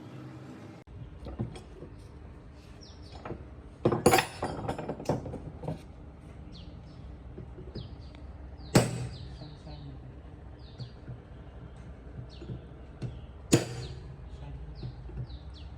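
Small birds chirping over and over, short quick falling chirps, with a few sharp knocks from workshop work: a cluster about four seconds in, then single ones near nine seconds and thirteen and a half seconds.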